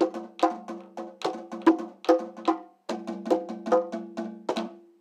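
Hide-headed hand drum struck with a stick in a quick rhythm, about four hits a second, each hit ringing with a clear pitch. The playing breaks off for a moment about three seconds in and stops just before the end.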